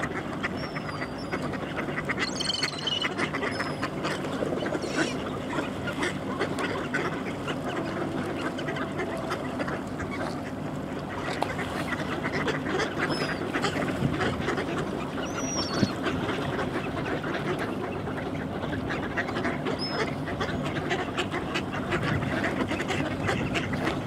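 A large flock of mallards quacking continuously in a dense, overlapping chorus. Short high thin calls of other birds break through now and then.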